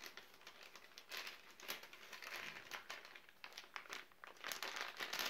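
A crinkly MRE packaging bag rustling as it is unfolded and opened by hand, in a run of irregular crackles that are loudest near the end.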